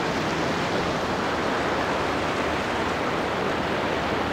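Steady rush of surf washing onto a sandy beach.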